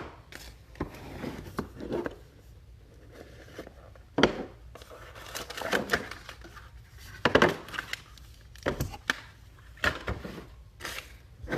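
Trading cards and their packaging being handled at a table: scattered rustles and light knocks of cards, plastic sleeves and cardboard boxes being moved and set down.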